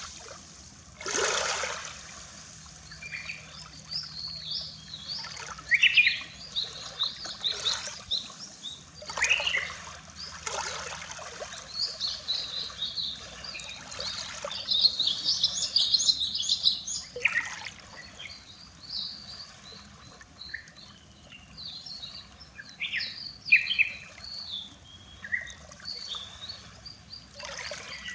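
Small Baltic Sea waves lapping and splashing at the shore every few seconds, with small birds chirping and twittering throughout.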